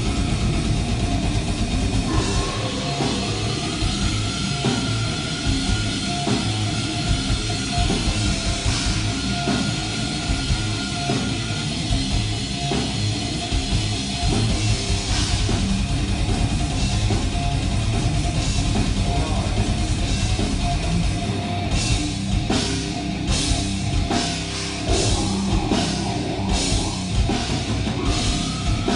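Death metal band playing live: fast, dense drumming under distorted instruments, with a long held high note in the first half and sharper cymbal crashes in the last third.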